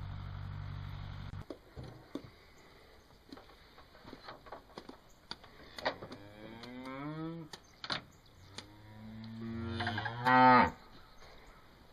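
Beef cattle mooing: two drawn-out moos, the second one longer and much louder, with a few scattered knocks around them. A steady low hum cuts off about a second and a half in.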